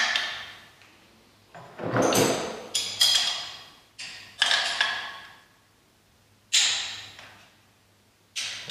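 Metal clanks and clinks with ringing tails from the metal parts of a davit arm assembly being handled and its bolts adjusted: about half a dozen separate knocks, a second or so apart, echoing in a large room.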